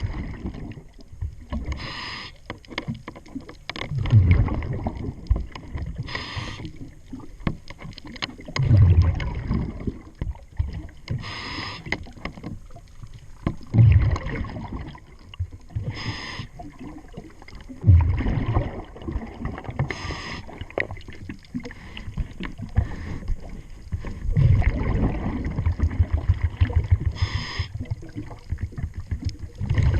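Scuba diver breathing through a regulator underwater, in a regular cycle of about one breath every four to five seconds: a short hiss on each inhale, then a low bubbling rush on each exhale.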